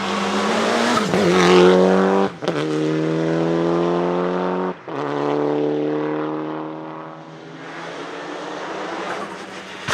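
Mitsubishi Lancer EVO VI Group A rally car's turbocharged 4G63 four-cylinder at full throttle, revs climbing through the gears, with sharp pops from its anti-lag misfiring system at the two upshifts about two and five seconds in. The sound fades after about six seconds as the car pulls away.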